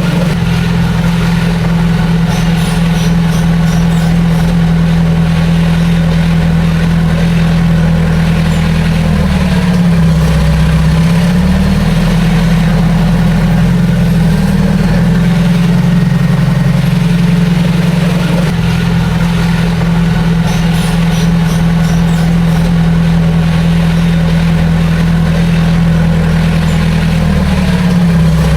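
Heavy diesel engine of earthmoving machinery running steadily and loudly. Its pitch dips briefly twice, about ten seconds in and again near the end.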